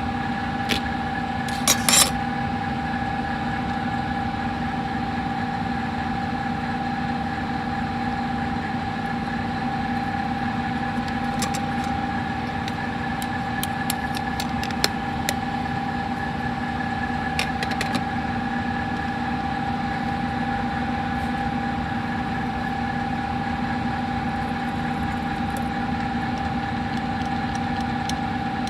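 A small machine running with a steady drone made of a few fixed tones, unchanging throughout. A few light clicks come now and then.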